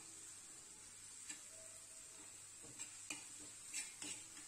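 Chopped onions sizzling faintly in a flat pan as a spatula stirs them, with several sharp taps and scrapes of the spatula against the pan.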